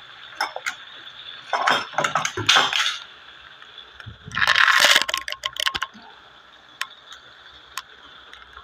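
Chicken pieces marinated in oyster sauce and soy sauce deep-frying in oil in a wok, a steady sizzle over medium heat. Twice, about two and five seconds in, it breaks into louder spells of crackling and sharp clicks.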